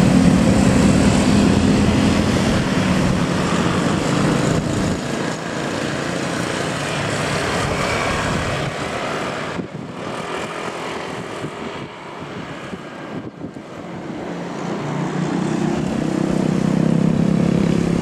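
Road traffic passing: a bus engine running loud and fading away over the first few seconds along with a car and motorcycles, quieter road noise in the middle, then another bus engine growing louder as it approaches near the end.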